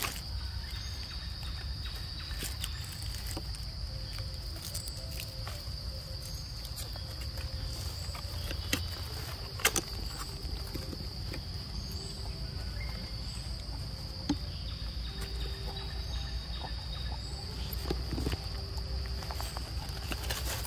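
Insects droning steadily at one high pitch, with a few sharp clicks, the loudest about halfway through, over a low rumble.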